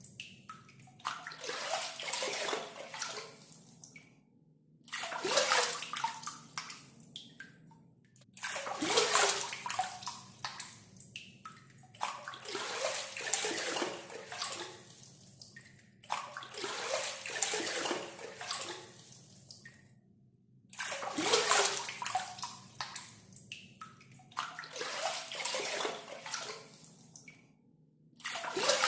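Water scooped up with a gayung, a hand-held water dipper, and poured out again and again: a splashing pour about every three to four seconds, each starting abruptly and tailing off.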